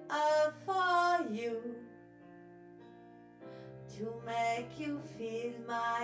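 A woman singing a slow ballad over a piano backing track. The voice drops out for about two seconds in the middle, leaving held piano notes, then comes back in.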